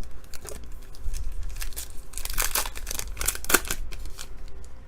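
A trading-card pack's wrapper being torn open and crinkled, a run of crackling tears from about a second and a half in until near the end.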